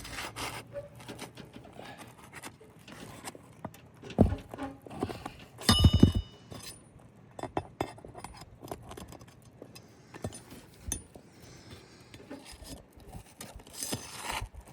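Steel flat bar prying roofing nails out from under asphalt shingles: scattered scrapes and metallic clicks. A sharp knock comes about 4 s in, and a louder metal clank with a brief ringing comes about 6 s in.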